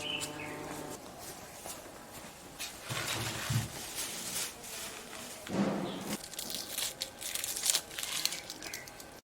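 Faint handling and movement noise: rustling and scattered clicks, with two dull thumps about three and six seconds in, cutting off suddenly to silence near the end.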